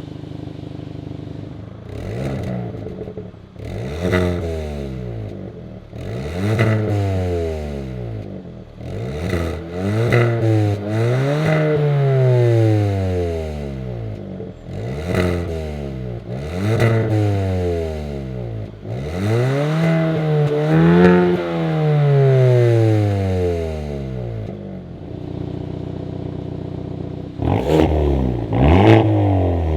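Hyundai N turbocharged four-cylinder engine being revved again and again, about a dozen times, each rev rising and falling back, with crackling pops around the revs. It settles to a steady idle near the end before revving again.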